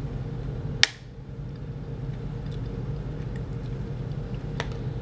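Steady low background hum with one sharp click about a second in and a fainter click near the end.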